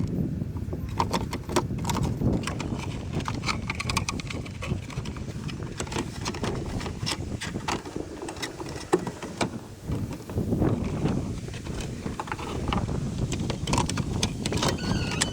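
Wind rumbling on the microphone, under scattered irregular clicks and light knocks from hands working plastic trim and fasteners around a car's tail light.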